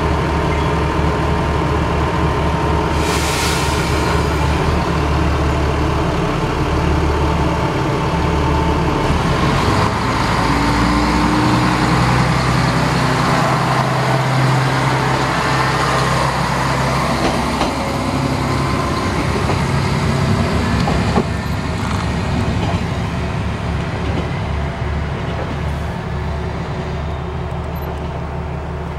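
Nagara 300 series diesel railcar idling, with a short hiss about three seconds in. Its diesel engine then rises in pitch as the car pulls away and passes, and the sound fades off into the distance near the end.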